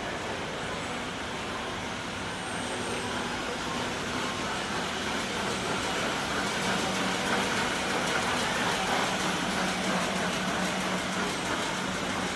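A Schindler elevator running: a steady hum and rush of air, with a low drone coming in about halfway through as the sound grows slightly louder.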